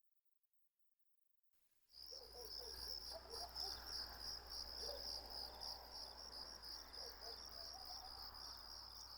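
About two seconds of dead silence, then crickets chirping in a steady, rapidly pulsing trill, with a faint low hum and a few faint calls underneath.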